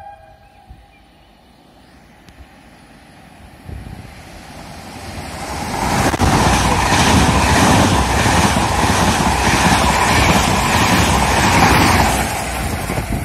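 Trenitalia E464 electric locomotive hauling an Intercity train along the station platform: the rumble of the train on the rails builds from about four seconds in, is loud for most of the rest, and eases a little near the end.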